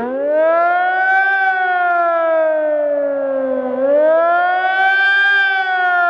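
Rooftop electronic civil-defence warning siren wailing during a siren test, its pitch sliding slowly up and down about every four seconds, with two tones sounding together.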